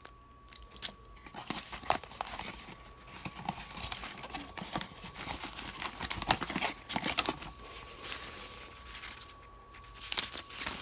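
Crinkling and rustling of packaging being handled and unwrapped, with many small irregular crackles and taps.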